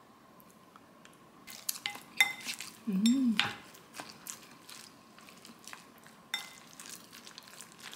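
Wooden spoon and wooden chopsticks stirring and mixing a rice bowl in a ceramic bowl: scattered clicks and scrapes against the bowl, some ringing briefly, starting about a second and a half in. A brief hummed voice sound about three seconds in.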